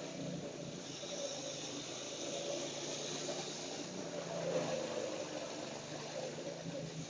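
A go-kart's 212cc single-cylinder engine running steadily as the kart is driven, its pitch shifting a little and loudest about four and a half seconds in.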